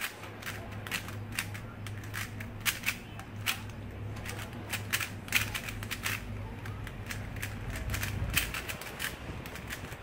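Plastic 3x3 Rubik's cube being turned quickly by hand: an irregular run of sharp clicks and clacks as the layers are twisted and snap into line, a few each second.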